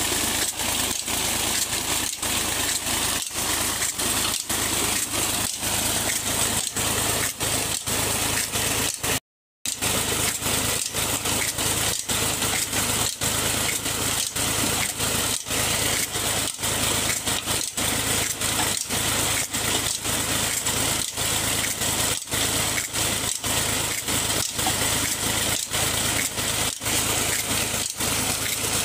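Fiat 480 tractor's diesel engine running steadily under load, driving a long flat belt and line-shaft pulleys that turn two tubewell pumps, with a regular beat about twice a second. The sound cuts out briefly about nine seconds in.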